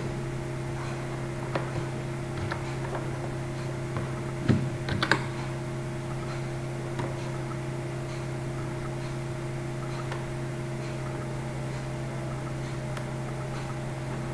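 A few scattered clicks from a computer mouse and keyboard, the loudest in a quick cluster about five seconds in, over a steady low hum.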